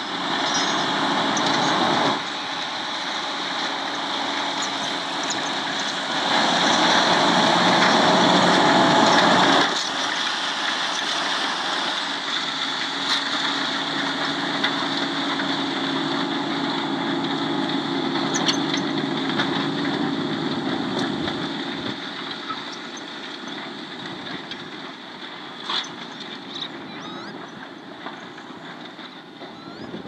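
Fendt 720 tractor's engine running under load as it pulls a five-furrow Kverneland reversible plough through the soil: a steady, continuous drone. It is loudest for a few seconds about a third of the way in, then fades gradually over the last third as the tractor moves away.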